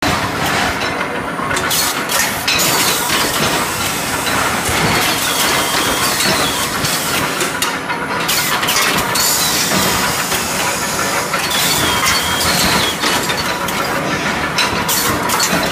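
Induction bar-heating line running: a loud, steady mechanical din with frequent short metallic clinks and knocks as steel bars are handled through the glowing induction coils.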